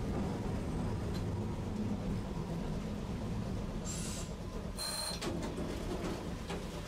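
Tosaden streetcar running with a steady low rumble, broken by two short high hisses about four and five seconds in, the second carrying a thin high tone.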